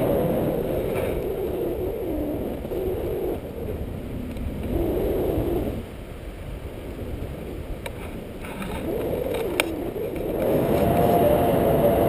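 Wind rushing over the camera microphone from the airflow of a paraglider in flight, with a faint wavering whistle. It drops quieter about six seconds in and builds up again near the end.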